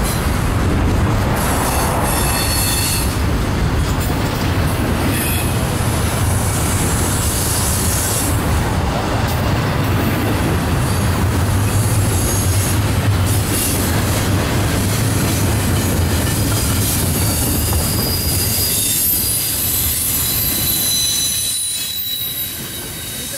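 Double-stack intermodal well cars rolling past on the rails: a steady loud rumble of wheels and cars, with thin high-pitched wheel squeal coming and going, easing slightly near the end.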